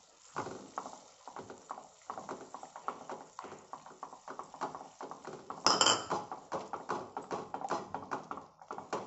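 Silicone spatula stirring fine semolina into hot water in a nonstick pan to break up lumps: quick, uneven tapping and scraping against the pan, with a louder clatter a little past halfway.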